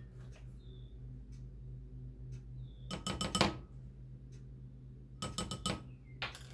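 A measuring spoon clinking and scraping against small glass spice jars while spices are scooped out: a few single clicks, then two quick runs of clinks about three seconds in and again about five seconds in.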